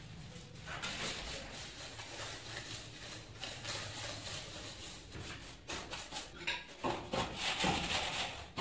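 Trowel scraping and rubbing through wet sand-cement mortar spread on a kitchen counter slab, with scattered light knocks. The scraping grows louder near the end as a metal straightedge is worked across the mortar to level it.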